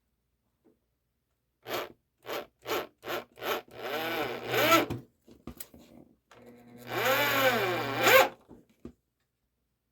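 Cordless drill driving a screw into wood. It gives five short trigger pulses, then two longer runs in which the motor's pitch rises and falls as the screw bites.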